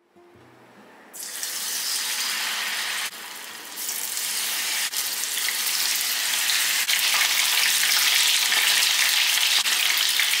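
Batter-coated mushroom pieces deep-frying in hot oil in a kadai: a loud sizzle starts about a second in, dips briefly around three seconds in, then picks up again and holds steady.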